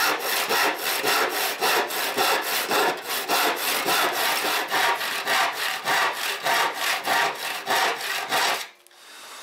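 Handsaw crosscutting an oak board in quick, even strokes, about three a second. The sawing stops near the end.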